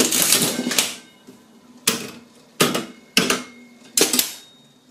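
Mechanism of a Mills one-arm-bandit slot machine being cranked up again, with about a second of rapid metal clattering and ratcheting. Then come four sharp metal clacks, each ringing briefly.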